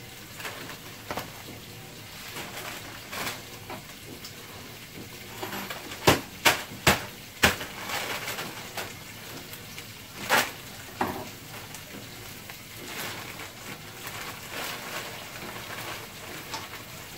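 Steady sizzle of food cooking in a pot, with sharp kitchen knocks and clatter: four loud knocks in quick succession about six to seven and a half seconds in, and two more around ten and eleven seconds.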